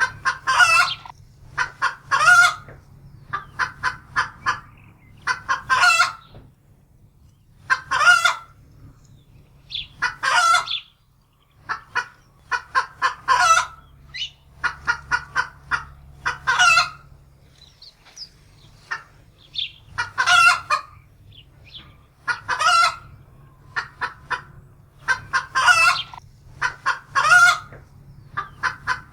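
Domestic hen cackling in alarm: bursts of short clucks that build into a louder drawn-out squawk, repeating about every two seconds. It is the fright cackle a hen gives after spotting a predator.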